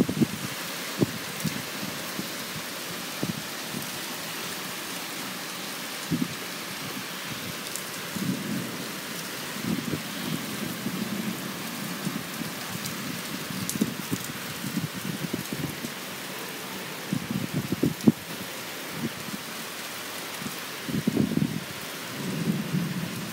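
Heavy rain pouring down in a steady hiss, with low gusts of wind rising now and then, most around the middle and near the end.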